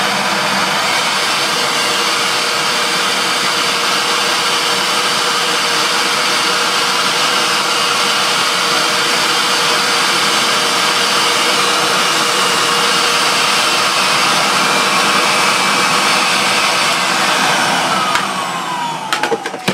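Sebo Airbelt C3 cylinder vacuum cleaner running steadily at a reduced power setting: a loud, even rush of air with a faint steady whine. Near the end it is switched off, and the motor winds down with a falling whine, followed by a few clicks.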